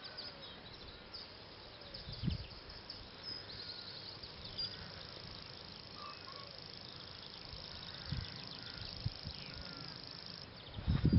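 Grasshopper warbler reeling: a high, steady, unbroken trill that starts a few seconds in and stops shortly before the end. Other birds call faintly in the background, and there are a few low thumps.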